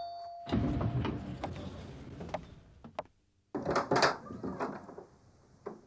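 Elevator arrival chime, one short steady tone, then the elevator doors sliding open with a rushing rumble. A second rush with a few clicks follows about three and a half seconds in.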